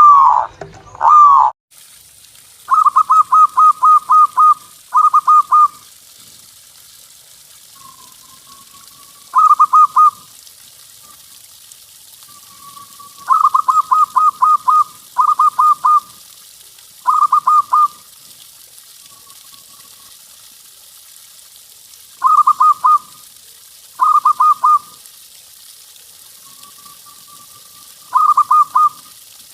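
Zebra dove (perkutut) song: repeated bursts of quick, pulsed coos around one pitch, several notes to a burst, with soft drawn-out single coos between the bursts. A different loud passage cuts off abruptly about a second and a half in.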